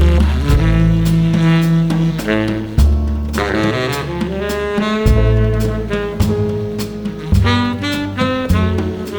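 Jazz combo playing instrumentally: a baritone saxophone carries a melodic line over acoustic bass notes, with drum cymbals keeping an even beat.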